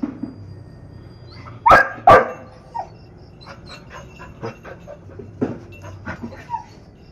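A Labrador puppy barks twice in quick succession about two seconds in, then gives a run of quieter short yips.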